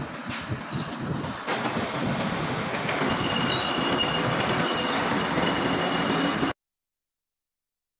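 Metal lathe cutting steel: a steady rough machining noise with a thin high squeal from the cutting tool, cutting off abruptly about six and a half seconds in.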